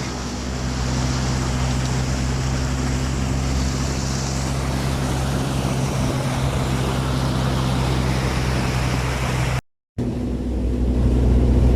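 Motor engine running steadily with a low hum under a broad rush of noise, briefly cutting out near the end.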